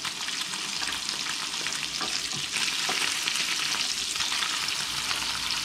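Sea bass fillet frying skin-side down in hot salted butter and olive oil in a griddle pan: a steady sizzle.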